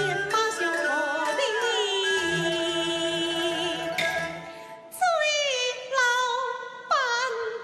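Gezai (Taiwanese opera) singing with traditional instrumental accompaniment: long held, ornamented notes, then three sharply attacked notes about a second apart in the second half, each sliding down in pitch.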